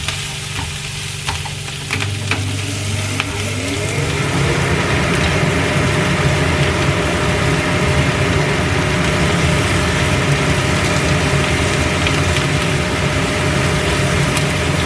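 Chopped chilies, shallots, garlic and pickled greens sizzling in hot oil as they are stir-fried with a wooden spatula in a stone-coated pan, sautéed until fragrant. The sizzle, under a steady low hum, grows louder about four seconds in, with a few knocks of the spatula early on.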